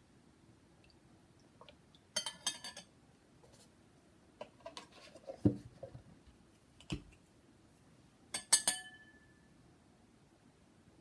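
Metal measuring spoon clinking against a glass mixing bowl while seasonings are measured in, in a few short clusters, the last one ringing briefly. A dull knock in the middle as a container is set down on the counter.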